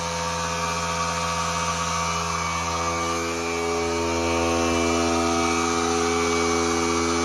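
A steady machine hum: a motor running with a pitched drone made of several tones plus a rushing noise above it. It gets slightly louder about four seconds in.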